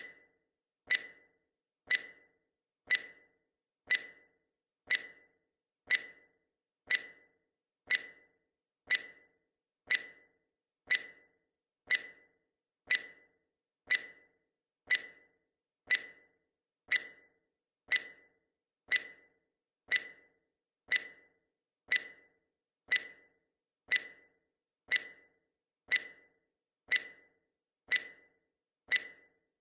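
Countdown timer's clock-tick sound effect: a short, sharp tick once every second, perfectly regular.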